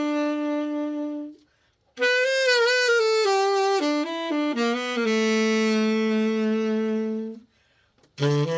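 Selmer Reference 54 tenor saxophone playing a slow phrase: a held note, a brief pause, a run of notes settling into a long low held note, then another pause and a new low phrase near the end.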